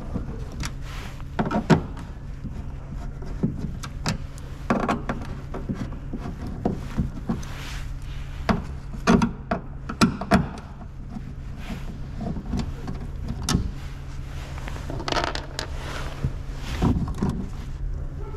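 Hand screwdriver backing out the screws of a car door speaker, with scattered clicks, light knocks and short scrapes of plastic and metal as the speaker is handled and pulled from its mount, over a steady low hum.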